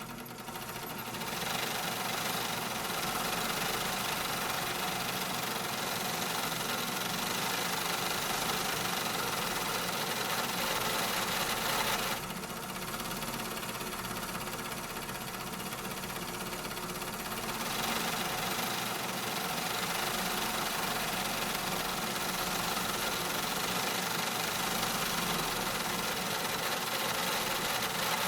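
Factory machinery running continuously: a dense mechanical din with several steady hums and a rattling, knocking quality. It grows louder a second or two in, eases slightly about twelve seconds in, and builds again near eighteen seconds.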